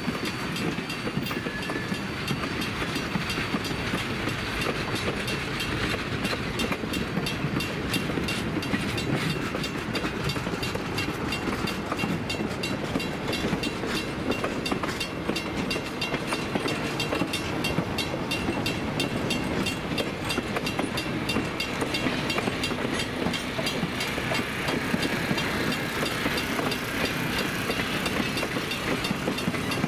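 Passenger train of heavyweight coaches rolling past, wheels clattering over the rail joints, while a grade-crossing bell rings steadily. Near the end the steam locomotive shoving at the rear draws level.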